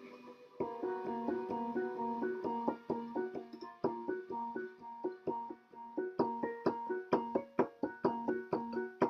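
Electronic keyboard played with a piano sound: a tune of chords and single notes, starting about half a second in and getting busier in the second half.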